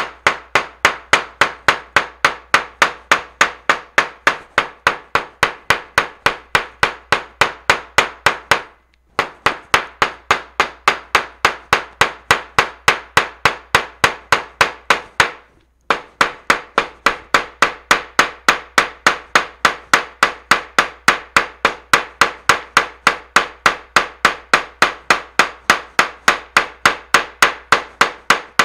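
Small hammer pounding a leaf through a paper towel onto paper laid on a cutting mat, hammering its pigment into the paper: steady, even blows about three a second. The blows stop briefly twice, about nine and about fifteen seconds in.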